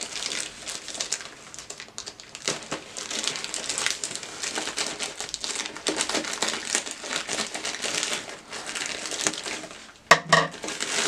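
Plastic courier bag crinkling and rustling as it is cut open with scissors and pulled apart: an irregular, continuous run of crackles.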